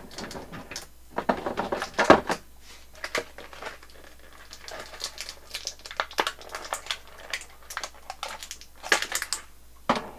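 Thin clear plastic packaging insert crinkling and clicking as it is handled, in uneven spurts, loudest about two seconds in and near the end.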